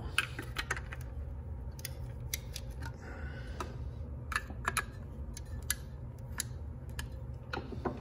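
Scattered sharp clicks and light taps, about a dozen at uneven intervals, over a steady low hum.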